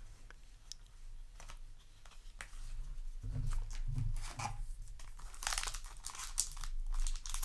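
Foil booster pack wrapper of a trading card pack crinkling and being torn open by hand, the crackling getting louder after about halfway, with a few soft handling bumps.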